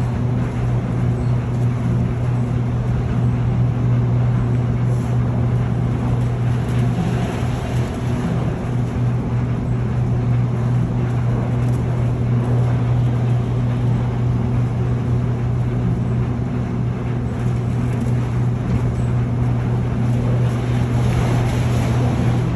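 Airport people-mover tram running, heard from inside the car: a steady rolling rush over a constant low hum.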